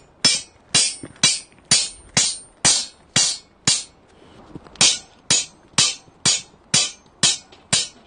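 A hammer striking the top of a metal pole again and again, driving it into stony ground: sharp clinking blows about two a second, with a pause of about a second near the middle.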